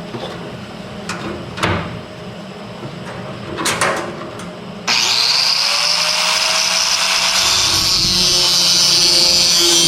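A few sharp knocks, then about five seconds in an electric power tool spins up, rising in pitch, and runs steadily while cutting a cope into the metal a little at a time.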